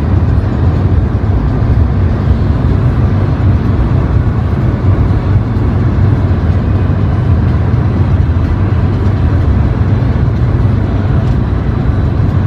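Steady low rumble of a car driving at highway speed, heard from inside the cabin: road and tyre noise.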